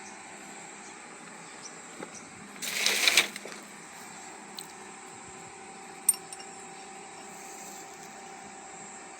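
Metal parts or tools clinking and rattling: a few sharp clinks and one loud clatter lasting about half a second, about three seconds in, over a steady background hum.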